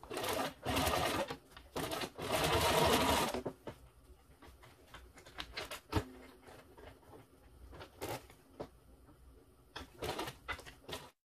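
Sewing machine top-stitching through leatherette on its longest stitch length, running in three short runs over the first few seconds and then stopping. After that come only light clicks and handling noises, with one sharper click about halfway through.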